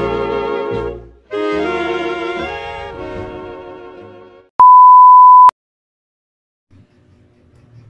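Music plays and fades away. Then a single loud, steady test-tone beep of the kind played with TV colour bars sounds for about a second, is followed by a short silence, and faint rustling comes in near the end.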